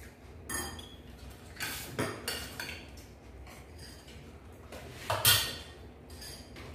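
Scattered clinks and knocks of plates and utensils at a crab meal: a handful of sharp hits, the loudest about five seconds in.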